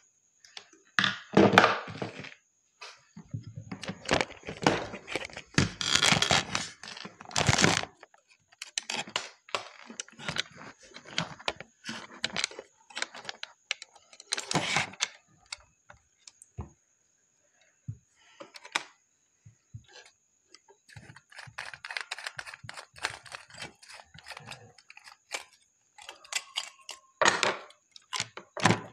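Hands handling twisted electrical wire and plastic modular switches in a wooden switch board: irregular clicks, knocks and rustling, with a few louder knocks.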